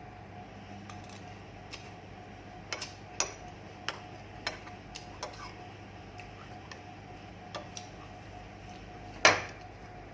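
Irregular sharp clicks and clinks of a utensil against a plate while eating, the loudest a little after nine seconds in.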